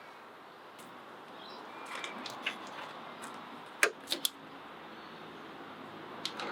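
Small plastic clicks and knocks from hands working on the plastic parts inside a car door: a few light ones, then a quick run of three sharper clicks about four seconds in, over a faint hiss.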